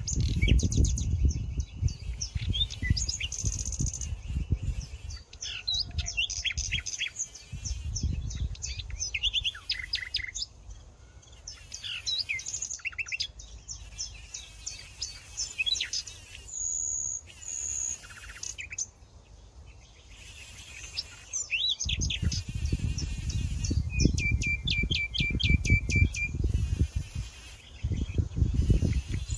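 Several songbirds chirping and trilling, with quick repeated high notes throughout. A low rumble sits under them for the first several seconds and again through the last third.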